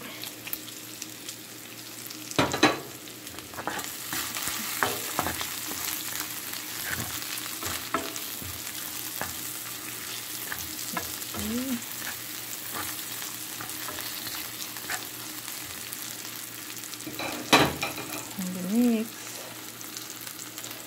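Meat, onion and garlic sizzling in oil in a stainless steel frying pan, the sizzle growing fuller after a few seconds. A spoon stirs and scrapes through the pan, with a sharp knock against it a couple of seconds in and another near the end.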